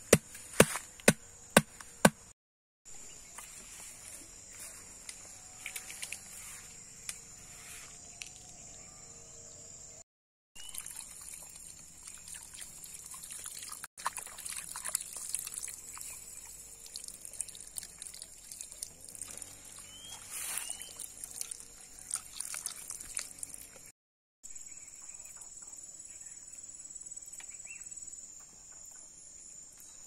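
A few sharp wooden knocks, about two a second, in the first two seconds as a bamboo stake is worked in the ground. Then a steady high insect drone, and water poured from a bottle splashing and dripping over a whole raw chicken as it is rubbed and washed by hand.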